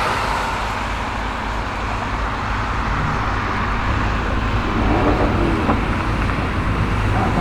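Steady noise of running cars with a low engine hum, without revving or sharp cracks.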